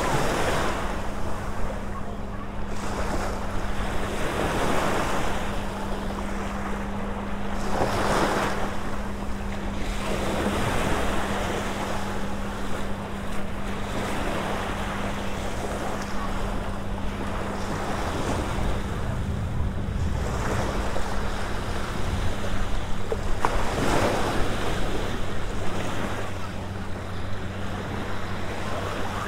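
Small Gulf waves washing up onto a sandy beach, the surf swelling and ebbing every few seconds, with wind buffeting the microphone and a faint steady low hum underneath.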